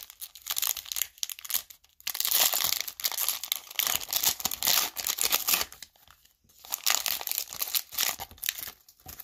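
Foil trading-card pack being torn open and crinkled by hand: irregular crackling tears in several stretches with short pauses between them.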